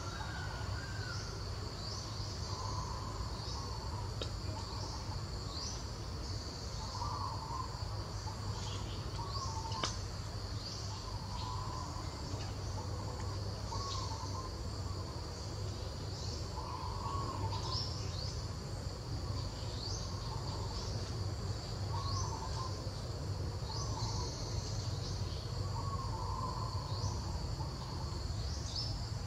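Steady high-pitched drone of insects with quick chirps over it. Short calls repeat every second or two lower down, over a low background rumble.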